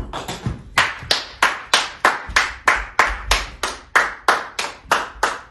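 Hands clapping in a steady, even rhythm, about three claps a second.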